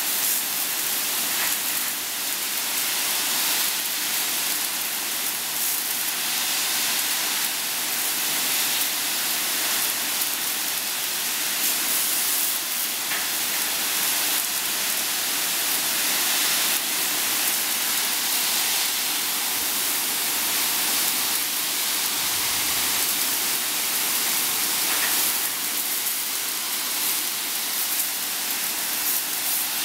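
Water jets from the spray nozzles of a railway bogie and wheelset washer, hissing steadily as they blast water and mist over the wheelset.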